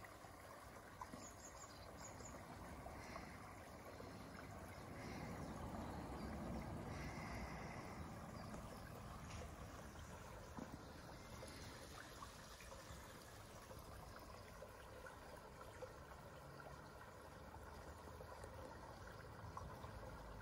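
Faint, steady outdoor background noise of a quiet garden, with a few faint high chirps.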